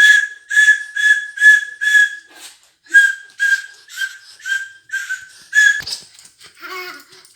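Toy whistle blown by a child in about a dozen short toots, roughly two a second, each a steady breathy tone.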